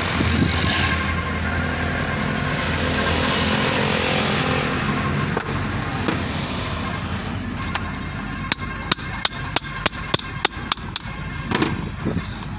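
A steady low hum, then, about eight seconds in, a run of about a dozen sharp metallic clicks, roughly three a second, from the steel hydraulic bottle jack being handled and fitted together on a steel bench.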